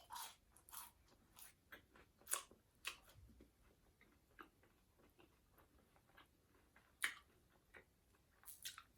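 Faint chewing of fast food, with scattered short crunches and wet mouth clicks, a few bunched near the start and near the end.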